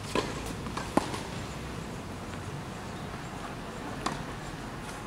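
A few sharp knocks of a tennis ball on the hard court or racket: one just after the start, a louder one about a second in, and a fainter one near four seconds, over steady outdoor background noise.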